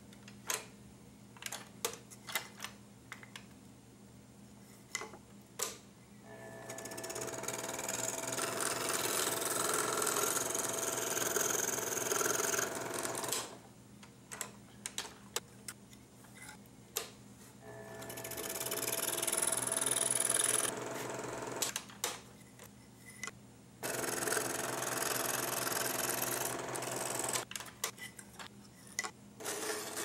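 Craftsman scroll saw cutting ¼-inch oak, its motor and blade running in several stretches of a few seconds each. In between it stops, and there are spells of sharp small clicks as the blade is released and threaded through the next entry hole.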